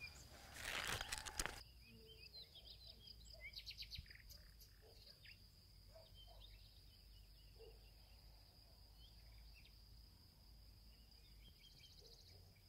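Faint outdoor garden ambience: insects keep up a steady high-pitched drone, with scattered soft bird chirps. There is a brief rustle about a second in and a quick run of clicks around four seconds in.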